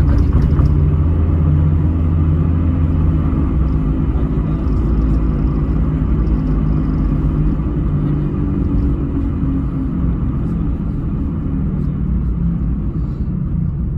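Car engine and road noise heard from inside the cabin while driving: a steady low hum whose engine note drifts slightly in pitch.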